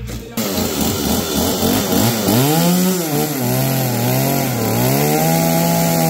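Stihl two-stroke chainsaw revving, its pitch rising and falling with the throttle, then held at high revs near the end as the bar cuts into a smoked roast.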